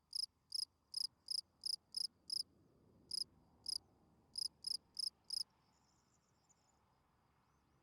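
Field cricket chirping: short, high, evenly spaced chirps about three a second, with a couple of brief pauses, that stop about five and a half seconds in.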